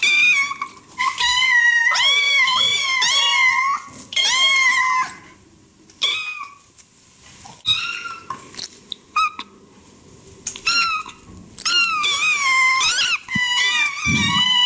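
Cat meowing again and again: short, high-pitched meows, some in quick runs, with quieter pauses about five seconds in and around nine to ten seconds. A dull thump near the end.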